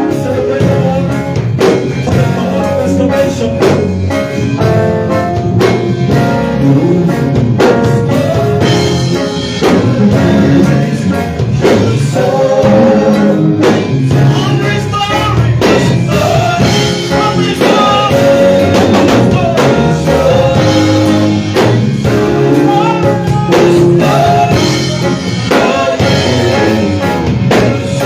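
Gospel worship song: voices singing over a drum kit and band accompaniment.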